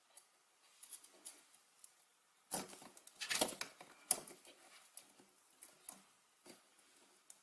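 Light clicks and rubbing of a wooden skewer being shifted and adjusted in a foam-board frame. A louder stretch of scraping and knocks comes about three seconds in, with a few scattered ticks before and after.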